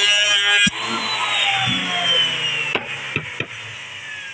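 Electric hand planer (Hyundai) shaving a wooden board, its motor whining under load, then cut off about a second in and winding down with a steadily falling whine. A few sharp knocks near the end, as the board is handled.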